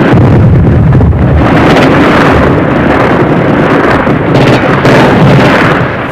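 A loud, rough rumbling roar that swells and eases several times, with no siren tone in it, the noise of an air raid under way.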